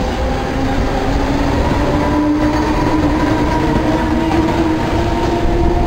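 Regional electric train of double-deck coaches hauled by an E464 locomotive passing close along the platform, with a steady wheel rumble on the rails. Over it a whine rises slowly in pitch as the train gathers speed.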